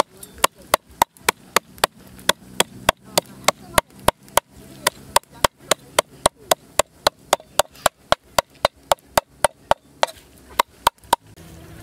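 Heavy cleaver mincing snake meat on a wooden chopping board: sharp, regular chops about three to four a second. They pause briefly near the end, then come two more before stopping.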